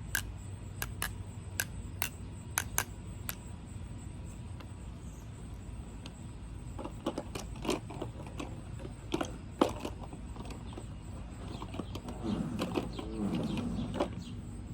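Plastic lip gloss tubes clicking and tapping as they are handled. Near the end comes a wet, wavering squelch from a lip gloss tube, which sounds like pooping.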